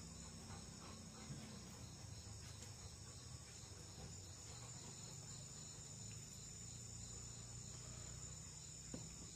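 Faint, steady, high-pitched chirring of insects, with a low hum underneath.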